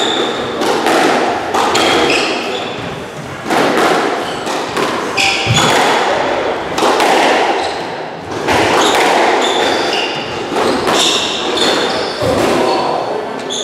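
Squash rally: the ball cracking off rackets and walls in quick, irregular strokes, each ringing in the enclosed court, with sneakers squeaking on the wooden floor as the players lunge and turn.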